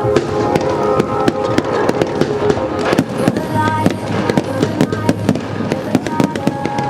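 Fireworks display: many aerial shells bursting and crackling in quick succession, several a second, with music playing alongside.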